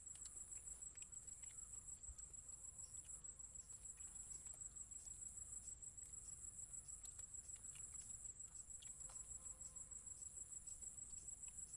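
Crickets trilling steadily in a high-pitched, rapidly pulsing chorus, with a few faint clicks scattered through it.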